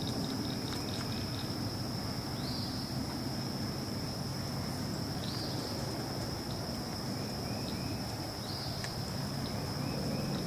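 Outdoor ambience of insects and birds: a steady high-pitched insect drone throughout, a quick pulsing insect trill that stops about a second and a half in, a few short bird calls and chirps, all over a steady low rumble.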